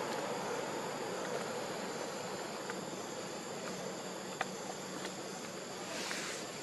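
Steady high-pitched insect drone over a constant hiss of outdoor background noise, with a few soft ticks.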